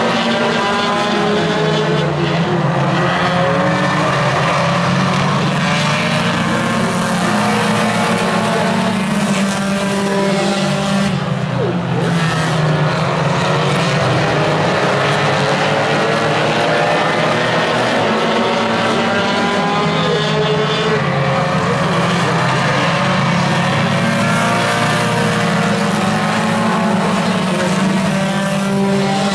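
A pack of compact tuner-class race cars running flat out, several engines revving up and down together so that the pitch keeps rising and falling as cars pass.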